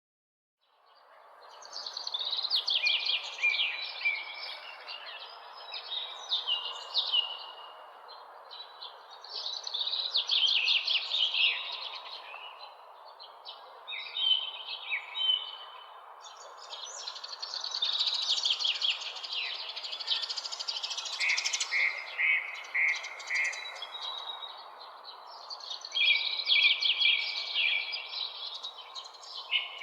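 Songbirds singing in repeated bouts of quick chirps and trills, a few seconds each, over a steady background hiss. The sound starts after a brief moment of silence.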